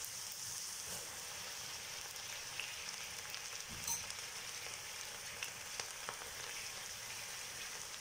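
Battered okra pieces deep-frying in hot oil: a steady sizzle with scattered small pops and crackles, one a little louder about four seconds in.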